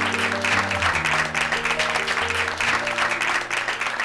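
An audience applauding with many hands clapping, over background music with held chords.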